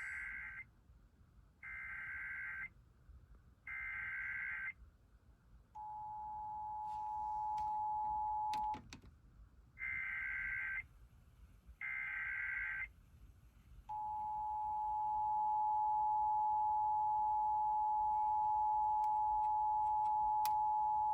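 Emergency Alert System tones for a Required Monthly Test: three short bursts of SAME digital header data about two seconds apart, then the two-tone attention signal for about three seconds, two more data bursts, and the attention signal again, held steady for about nine seconds until it cuts off just after the end.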